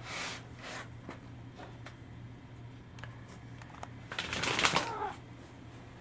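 Rustling and scraping with scattered light clicks from a cat wearing a plastic cone collar moving right beside the microphone, with a louder rubbing scrape lasting about a second near the end.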